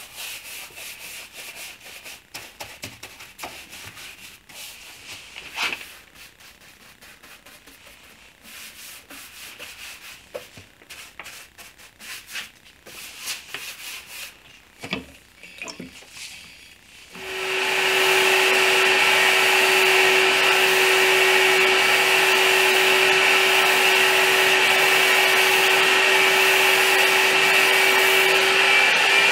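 Brush and rag strokes scrubbing dark walnut stain onto wood, irregular and scratchy. About 17 s in, a spray gun starts up much louder: a steady hiss of air and atomised finish over a steady hum from its air supply.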